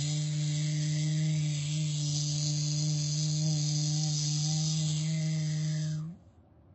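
A voice holding one long, steady low note with a hiss over it, an imitated animal sound played back slowed to half speed; it cuts off about six seconds in.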